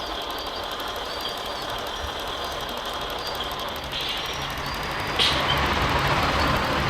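Radio-controlled scale construction machines working: a steady mechanical whir and rattle of small motors and gears, with short high-pitched whines that come and go and a sharp click about five seconds in.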